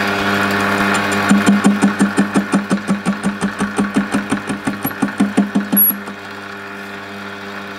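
Small metal lathe turning a large home-cast aluminium billet slowly at about 300 RPM, with a steady motor and gear hum. The cutting tool knocks rhythmically at about five times a second, once per turn of the rough, out-of-round casting, and the knocking stops about six seconds in, leaving the hum.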